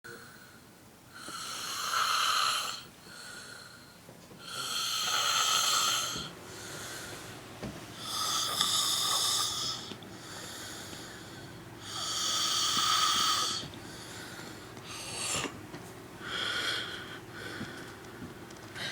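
Loud, high-pitched snoring: four long snores about every three to four seconds, then three shorter snores in quicker succession near the end.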